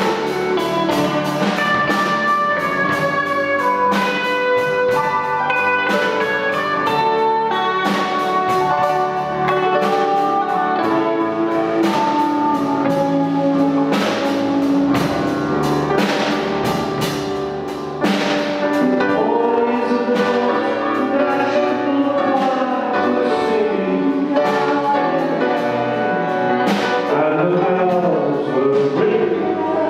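Live rock band playing a song: electric guitars, drum kit and keyboards, with singing.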